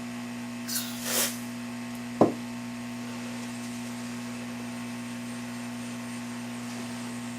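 Steady electrical mains hum on the workbench, with a short hiss about a second in and one sharp knock just after two seconds.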